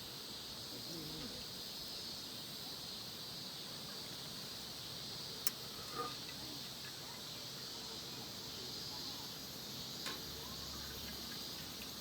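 Steady chorus of crickets and other insects, a continuous high shrill, with a few sharp clicks about halfway through and again near the end, and faint voices in the background.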